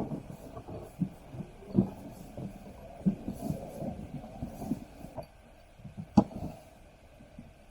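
Irregular hollow knocks and thumps of a plastic folding kayak's hull panels being unfolded and fitted together, with one sharp snap about six seconds in.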